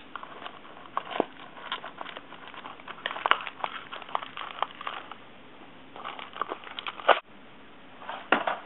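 Plastic snack wrapper crinkling and crackling as it is bitten and pulled at to tear it open, in irregular bursts of sharp clicks.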